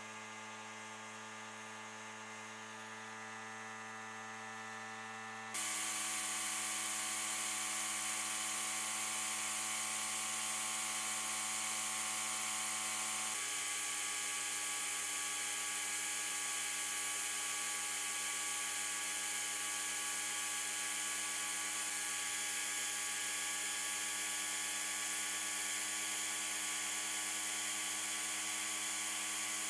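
Sandblasting cabinet: a steady electric hum, then about five seconds in the blast gun opens up with a loud, steady hiss of air and abrasive as it strips rust off a metal stove part.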